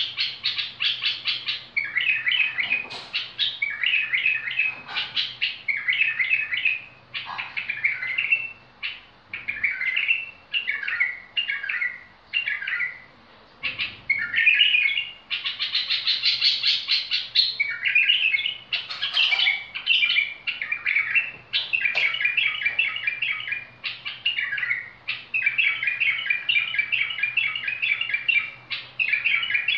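Bulbul singing on and on: short phrases of rapid chirps, one after another about every second, with only brief gaps.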